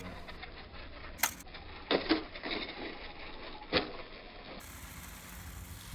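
Micro RC cars bashing about, giving three sharp knocks and clatters spread over a few seconds against a low steady hiss.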